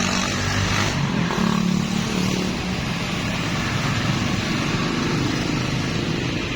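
Steady road traffic noise, with a motor vehicle's engine passing and loudest between about one and two and a half seconds in.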